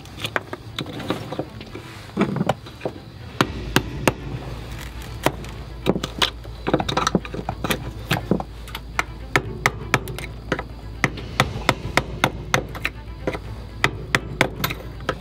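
A chisel blade scraping and tapping at hardened sealant and rotted wood around a stainless steel chainplate, in quick, irregular sharp scrapes and knocks.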